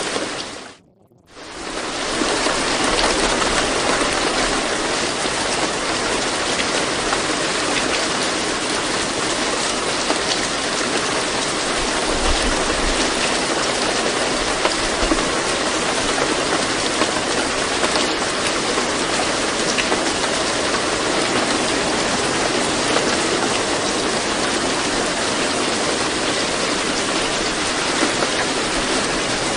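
Steady rain sound, an even, dense hiss of falling rain. It drops out briefly about a second in and fades back up.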